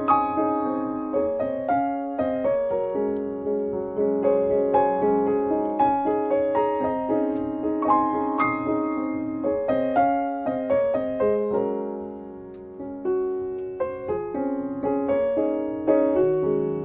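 Background piano music, single notes and chords struck one after another and dying away, dipping in loudness about twelve seconds in before picking up again.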